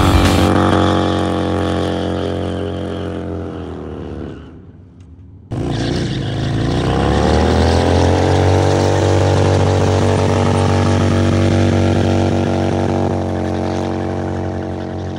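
Motorcycle engine whose revs fall away and fade over the first few seconds. The sound then cuts back in abruptly, revs climbing and then holding steady.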